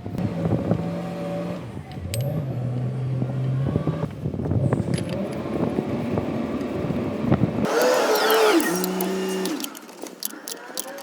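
A motor running with a steady hum whose speed steps up and down, with clicks and knocks over it; about three-quarters in, the sound changes abruptly to a higher tone that glides down.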